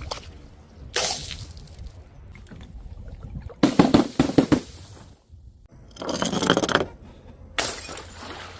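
Glass bottles or jars smashing, four separate crashes in a row. The third, about six seconds in, leaves a bright glassy ringing, and the second is a cluster of several hits close together.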